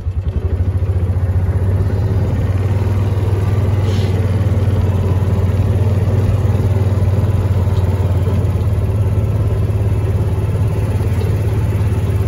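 Motor vehicle engine running steadily with a low drone, getting a little louder over the first second or two and then holding even.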